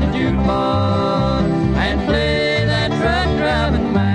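Bluegrass music: mandolin and acoustic guitar playing a country song over a steady, alternating bass beat.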